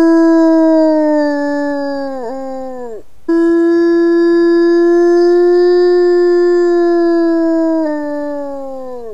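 Grey wolf howling alone: a long, steady howl that wavers and falls away about three seconds in, a short breath, then a second long howl on a slightly higher note that drops at its end. It is a lone howl to the rest of its family group, which the park's observers suspect was a question about where they were.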